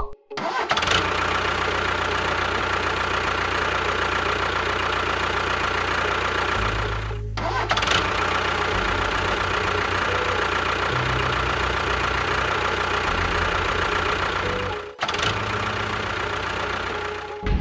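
An engine running steadily, with abrupt cuts about seven and fifteen seconds in, where the sound breaks off and resumes.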